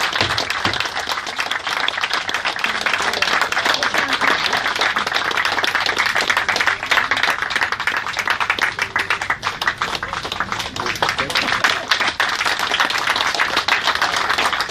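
Many people clapping continuously, a dense, even clatter of hands.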